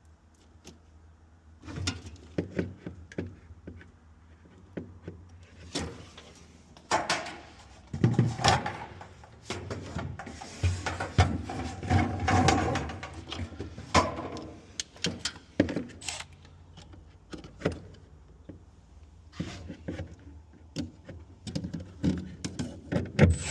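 Hands working on parts inside a refrigerator: scattered clicks, knocks and rustling as pieces are handled and fitted, busiest in the middle.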